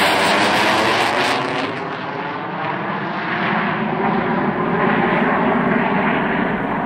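Eurofighter Typhoon's twin EJ200 jet engines, loud as the fighter passes overhead on a low approach. The roar dulls after about a second and a half as the jet draws away, losing its high hiss while the deeper rumble carries on.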